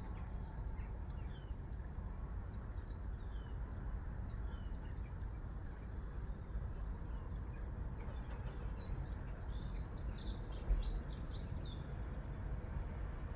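Small birds chirping and tweeting in short calls over a steady low background rumble. The chirps grow busiest about two-thirds of the way through, where one brief low thump also stands out.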